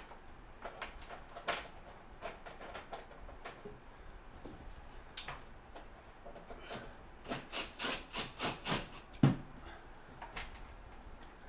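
Light clicks and knocks of hand tools and mounting hardware being handled against a wooden cabinet, with a quick run of sharper clicks about seven to eight seconds in. The cordless drill is picked up but does not run.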